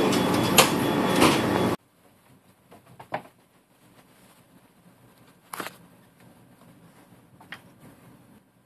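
Loud steady noise with clicks that cuts off suddenly about two seconds in, then a quiet room with three short knocks spaced a couple of seconds apart.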